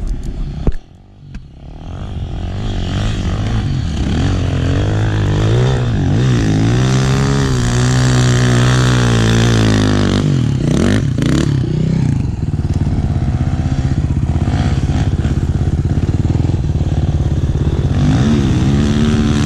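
Dirt bike engine running close by. Its pitch rises and falls over several seconds as the bike climbs the hill on the throttle, then settles into a steady drone. A brief sharp knock and a short lull come about a second in.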